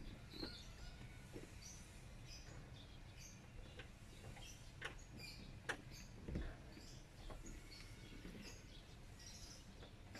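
Faint ambience with scattered bird chirps, over a low steady hum, and a few soft clicks spread through.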